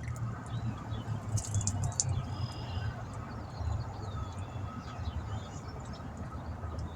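Faint bird chirps over a steady low rumble.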